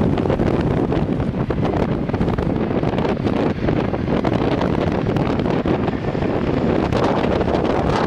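Strong gale-force wind buffeting the camera microphone: a loud, gusty rumble with no clear tone.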